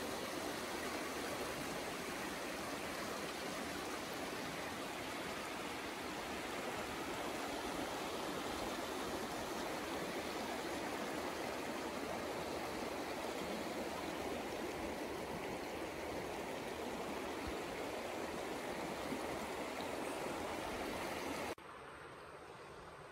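Shallow, rocky mountain river rushing steadily over stones. Near the end the sound drops suddenly to a much quieter hush.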